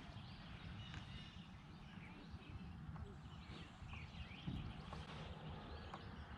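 Faint birds chirping over a steady low rumble of wind on the microphone.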